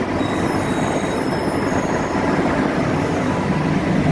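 Steady running noise inside the cab of a diesel locomotive converted to electric traction as it moves along the track, with wheels running on the rails.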